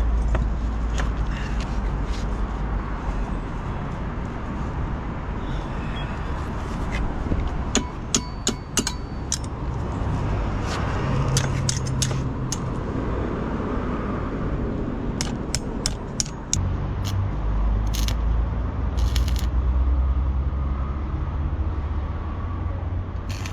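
Electric welding and metal work on a thin metal part near a pushcart's wheel: clusters of sharp metallic clicks and crackle, the busiest stretch about a third of the way in, over a steady low rumble.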